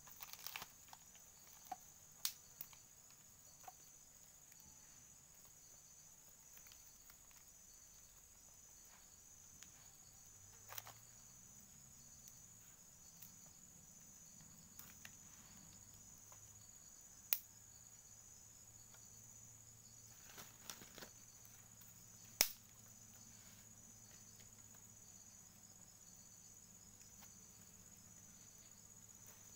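Faint steady chirring of insects, with a few isolated sharp clicks from the small twig fire being tended; the loudest click comes about three-quarters of the way through.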